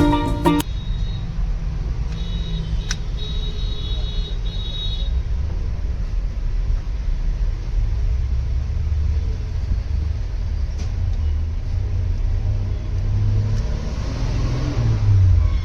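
Steady low rumble of background noise, with a single sharp click about three seconds in.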